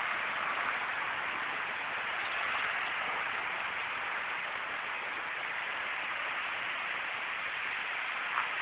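Steady rushing of a mountain stream, with a single short click near the end.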